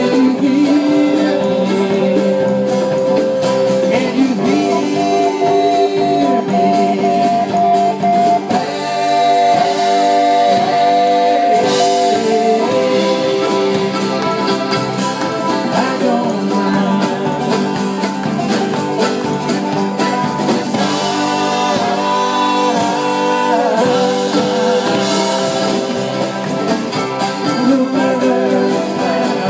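Live folk band playing a song: several men singing together over strummed acoustic guitars, with accordion.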